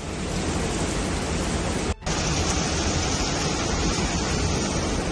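Steady rush of storm wind and heavy surf breaking over a sea wall. The sound cuts out for an instant about two seconds in.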